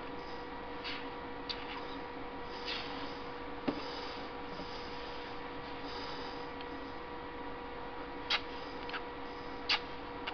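Steady electrical hum, with a few sharp taps about four seconds in and twice near the end as paint dots are dabbed onto the vase from a paint bottle's nozzle.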